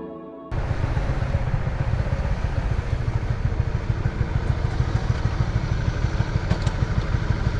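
Honda CB150R's single-cylinder engine running on the move, under a heavy rumble of wind on the microphone. It cuts in abruptly about half a second in, after a brief tail of soft ambient music.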